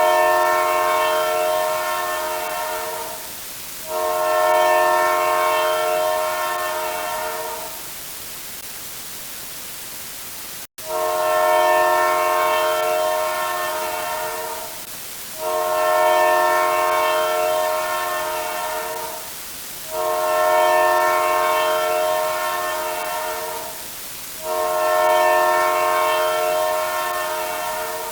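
A multi-tone horn sounding a chord in six long blasts of about four seconds each, each fading a little, over a steady hiss, with a longer gap midway.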